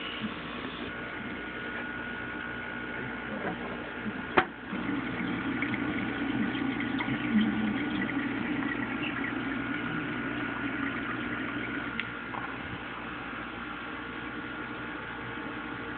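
Aquarium filter running: water trickling over a steady hum. A sharp click about four seconds in, and the water sound grows louder for a few seconds after it.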